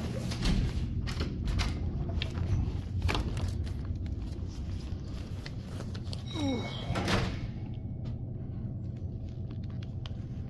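Knocks, clicks and clatters over a steady low hum, with a brief sound falling in pitch about six and a half seconds in.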